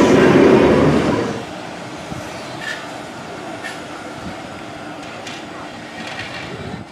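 Heritage electric tram rolling close past, its wheels rumbling loudly on the rails. About a second and a half in, this gives way to a quieter double-deck tram running along the track, with a few faint clicks from the wheels.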